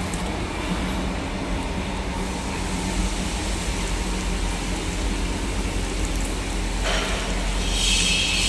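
Steady hum of an electric pump motor running, with a loud hiss joining about a second before the end.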